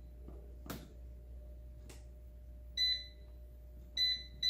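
Cosori air fryer's control panel beeping as its buttons are pressed to set the temperature. There are short high electronic beeps, two in the second half and a third right at the end, with a couple of faint clicks earlier.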